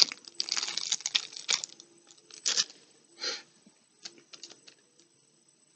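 Clear plastic bag crinkling as it is handled to get a cookie cutter out. The crinkling is dense for the first second and a half, then a few shorter rustles and light clicks follow and thin out.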